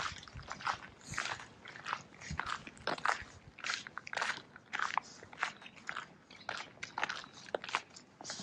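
Footsteps crunching on packed snow at a steady walking pace, a little under two steps a second.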